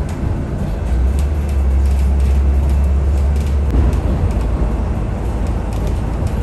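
Interior ride noise of a moving city bus: a deep engine and road drone with scattered clicks and rattles from the fittings. The deepest part of the drone eases about four seconds in.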